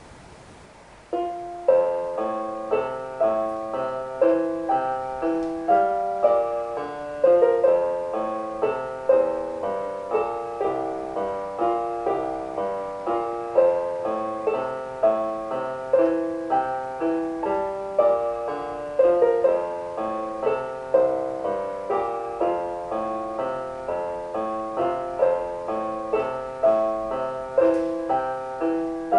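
Solo piano music: a steady run of single notes in a repeating pattern, starting about a second in.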